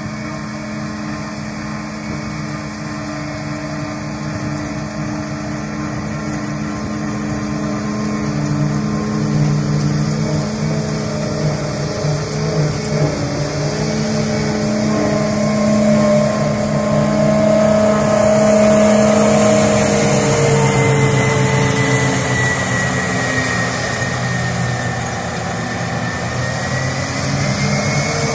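Self-propelled forage harvester chopping grass silage, with the tractor pulling the trailer alongside: engines running steadily, growing louder as the machines come closer and pass. A high whine comes in about two-thirds of the way through.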